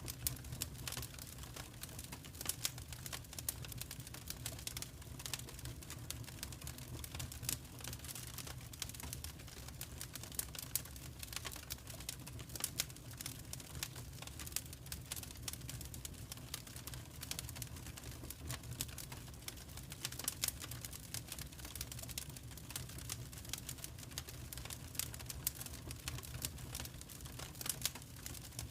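Wood fire burning in a fireplace: a steady low rumble of the flames with a constant run of sharp crackles and pops at irregular intervals.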